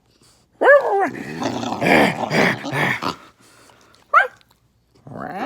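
A dog's strange vocalizing: a short call that rises and falls in pitch, then about two seconds of rough, grumbling growl. Another brief high call comes about four seconds in, and a longer one begins near the end.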